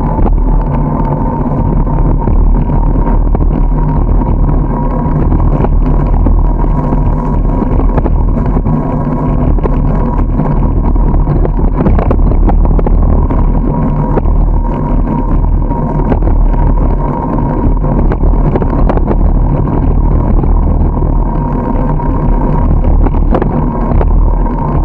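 Steady rumble of wind and tyre noise from a moving bicycle, picked up by a camera riding along on it, with a few brief knocks from bumps in the road.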